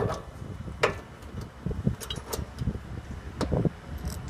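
A few scattered sharp metal clanks and knocks as a new compressor is bolted into a rooftop HVAC unit.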